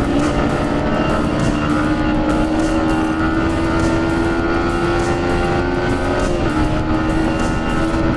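Motorcycle engine running hard under acceleration, its pitch slowly climbing, then dropping slightly about six seconds in before holding steady, with wind rush over it.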